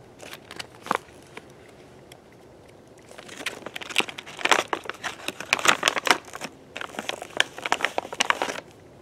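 A Faraday bag crinkling as it is handled and opened: a few light clicks at first, then a dense run of crackles from about three seconds in until near the end.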